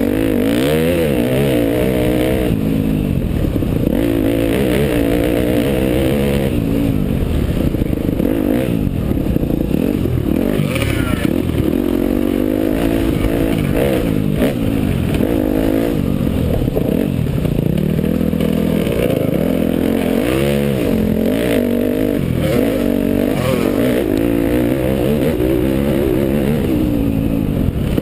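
Dirt bike engine heard close up from an on-board camera, revving up and down continuously as the rider works the throttle and gears along a trail, with the pitch rising and falling every second or two.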